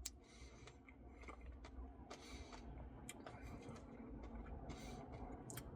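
Very faint scattered clicks and a few soft rustles, close to silence.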